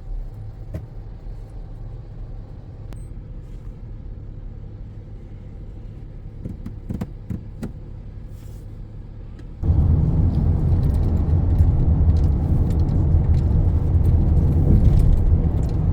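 Car driving on a road, heard from inside the cabin: a steady low rumble of engine and tyres that suddenly grows much louder about ten seconds in and stays loud.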